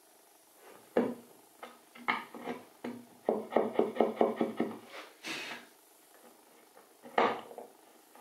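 Wood chisel cutting a hinge mortise into the edge of a chestnut door frame: sharp chops and scrapes, with a quick run of about eight short strokes in the middle and a single sharp chop near the end.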